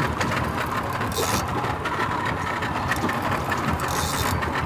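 Large saltwater spinning reel clicking and ratcheting steadily as a hooked dorado is fought, over the low steady running of the boat's outboard engine.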